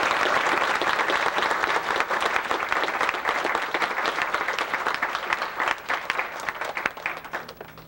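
Applause from a roomful of seated students clapping by hand, dense and steady, then thinning out and dying away near the end.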